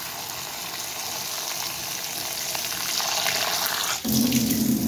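Kitchen tap running water into a stainless-steel bowl of fried gram-flour phulkis, a steady splashing hiss. About four seconds in the sound abruptly turns lower and louder.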